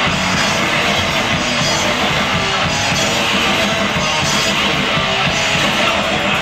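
Thrash hardcore punk band playing live, loud and without a break: distorted electric guitar, bass guitar and drum kit.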